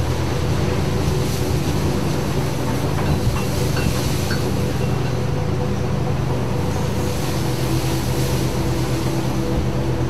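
A ship's engine droning steadily under rushing wind and storm sea.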